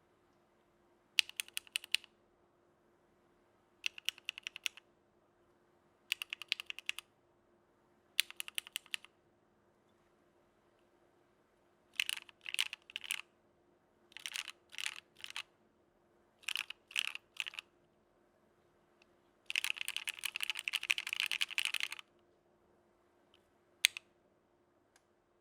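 Mechanical keyboard with Gateron CJ linear switches (POM stems, stock springs, Krytox-lubed) on an aluminium plate, with CRP Greek R4 keycaps, being typed on in short bursts of rapid keystrokes separated by pauses, then a dense fast run of typing for about two and a half seconds, and one last single keystroke near the end.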